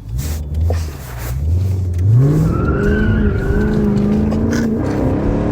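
A vehicle engine revving: low at first, then climbing sharply about two seconds in and holding at high revs with a slight waver.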